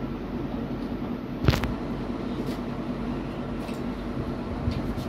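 Steady low room hum with a few level tones. It is broken by one sharp click about a second and a half in and a few fainter clicks later on.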